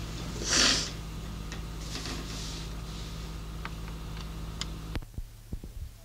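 Low electrical hum with a brief hiss under a second in and a few scattered clicks, on a lo-fi home cassette recording. The hum cuts off suddenly about five seconds in, followed by a few soft knocks.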